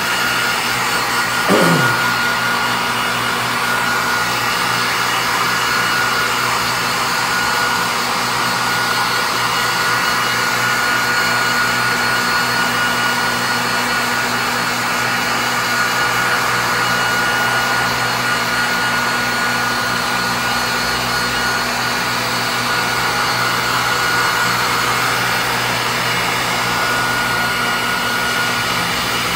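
Handheld electric heat gun blowing steadily, a rush of air with a steady high whine, as it sets white plastisol ink on a screen-printed shirt.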